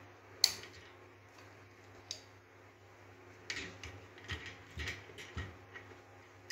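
Steel hand tools clicking and knocking against the metal tube and fitting of a hand grease pump while it is gripped and tightened: one sharp click about half a second in, another near two seconds, then a run of lighter clicks and taps.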